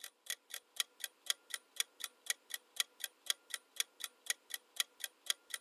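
Clock-ticking sound effect counting down a quiz answer timer: sharp, even ticks, about four a second.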